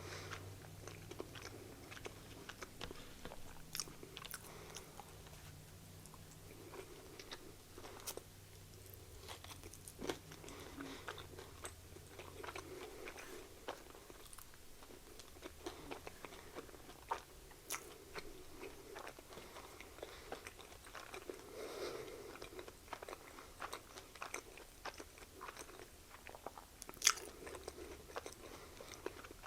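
Close-miked chewing and biting of a soft chicken sandwich, with small wet mouth clicks throughout and a few sharper clicks in the second half. Faint and irregular.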